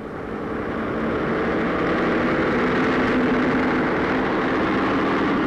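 Engine of a LeTourneau-Westinghouse rubber-tyred motor scraper running hard as the machine drives across the earthworks. It grows louder over the first couple of seconds, then holds steady.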